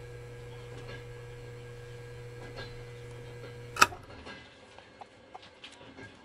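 Train carriage interior: a steady low hum, then a sharp click about four seconds in. The hum stops with the click, leaving only faint scattered ticks and rattles.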